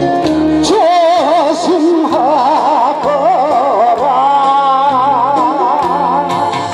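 Live Korean trot song through a PA system: a man singing with heavy vibrato over band accompaniment.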